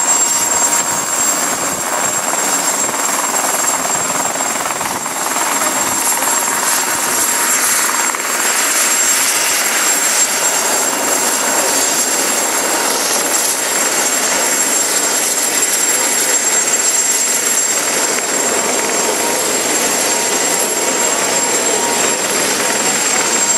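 Mosquito XET ultralight helicopter running steadily, with a thin, high steady whine over the noise of the engine and rotor.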